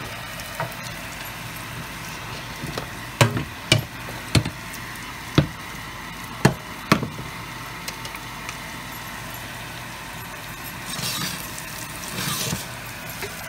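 Kitchen cookware and utensil noises: a handful of sharp clicks and knocks over a steady hiss, with a brief swell of sizzling near the end.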